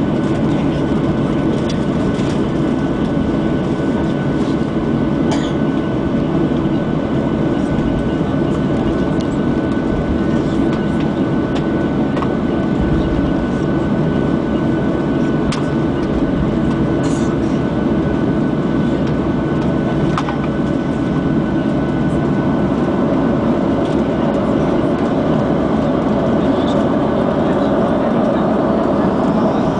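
Cabin noise inside a Boeing 737-700 taxiing, with its CFM56-7B engines at low power: a steady rumble with a thin steady whine over it and a few faint clicks and rattles.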